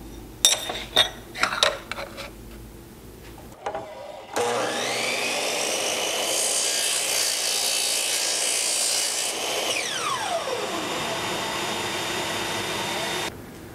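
A few light clicks come first. Then a DeWalt miter saw motor starts with a rising whine, and the blade cuts through an aluminum miter track insert for about three seconds, a bright, harsh cutting noise over the motor. After the cut the saw winds down with a falling whine.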